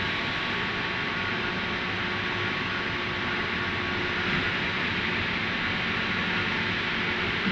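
Aluminium billet induction furnace and its surrounding plant running: a steady hiss with a few faint, constant tones and no change in level.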